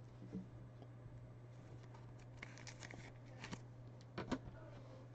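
Faint ticks and light rustles of baseball trading cards being handled, a few small clicks clustered in the middle and near the end, over a steady low hum.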